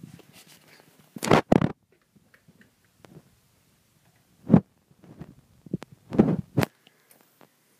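A few short scuffing noises: two close together about a second in, one about four and a half seconds in, and a longer one around six seconds, with faint ticks between.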